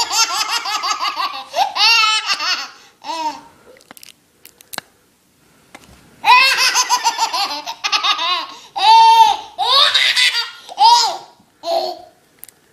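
A baby laughing hysterically in bouts of rapid, high-pitched belly laughs, with a pause of a couple of seconds in the middle.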